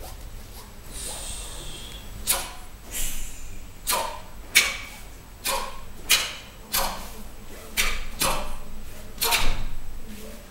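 Sharp snaps of two Taekwon-Do doboks cracking with each technique as the two perform a pattern in unison, about ten snaps at a fairly even pace starting about two seconds in.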